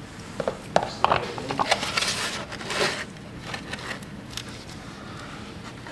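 Hand handling noises: a run of sharp clicks and knocks in the first three seconds, with a burst of rustling about two to three seconds in, then a few faint ticks.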